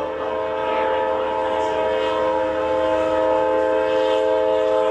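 An approaching Amtrak passenger locomotive's air horn sounding one long, steady multi-note chord.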